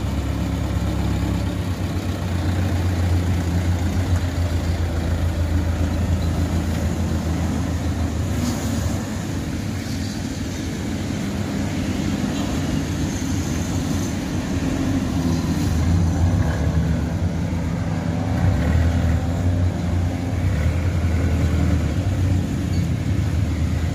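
Old Miniarta medium bus's engine running with a steady low drone, smoky exhaust puffing from the tailpipe; the sound swells a little about two-thirds of the way in.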